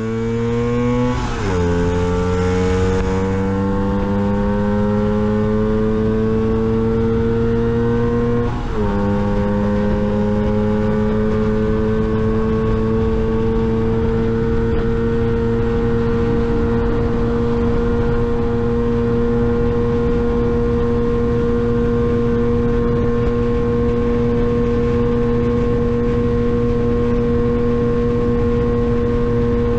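Lambretta GP125 scooter's two-stroke single-cylinder engine at full throttle. It climbs in pitch, drops sharply at two upshifts, one about a second in and one about eight and a half seconds in, then holds a steady high pitch as the scooter runs near its top speed.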